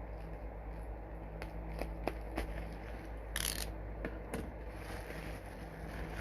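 Packaging being handled by hand: a scatter of small clicks and taps, and one short crinkling rustle about three and a half seconds in, over a steady low hum.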